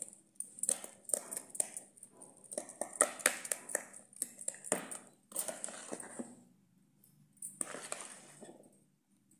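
Wire balloon whisk beating runny cake batter in a plastic bowl: quick, irregular clicks and wet taps of the wires against the bowl, coming in bursts with short pauses.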